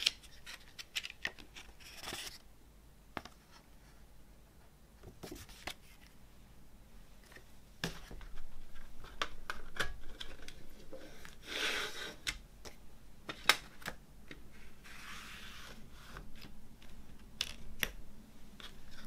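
Handling of a CD's paper booklet and plastic jewel case: short paper rustles and sliding, with scattered sharp clicks of plastic. Near the end the disc is lifted off the case's centre hub.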